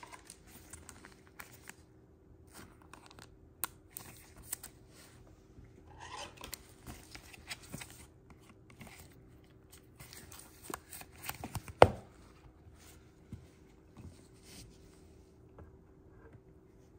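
Gloved hands handling a trading card and a clear plastic top loader: scattered soft rustling, rubbing and scraping of plastic and nitrile glove, with one sharp click about two-thirds of the way through. A faint steady hum lies underneath.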